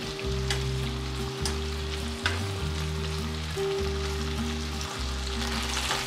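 Eggplant pieces sizzling in a nonstick frying pan in a ponzu and mirin sauce as they are tossed with tongs, with a few clicks of the tongs against the pan. Soft background music plays underneath.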